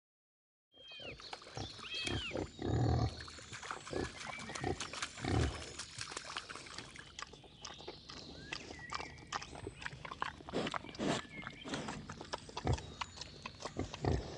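Wild boar grunting low and rooting through dry leaves and soil, with many small crackles and rustles and a few brief high chirps. The loudest grunts come about three and five seconds in.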